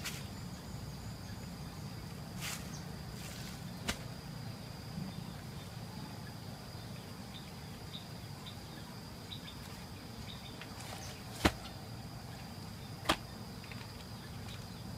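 Wooden logs knocking as they are set down on the muddy ground: a few sharp knocks, the two loudest about a second and a half apart near the end.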